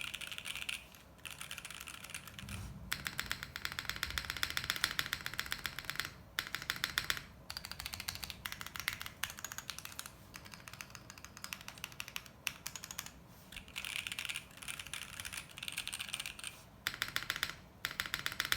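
Mechanical keyboard with stock SP-Star Red Blue CP switches in an FR4 plate, gasket-mounted with no foam, typed on fast in bursts with short pauses between them, each key giving a sharp clack. There is a low thump about two and a half seconds in.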